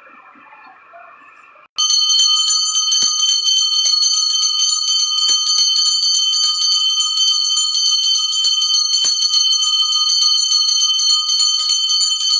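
Temple bell ringing without pause, its metallic ringing tones held steady at several pitches; it starts abruptly about two seconds in.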